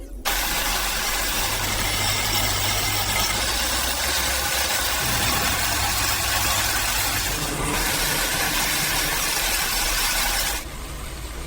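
Industrial machine running with a steady loud hiss over a low hum, starting abruptly and dropping off sharply near the end.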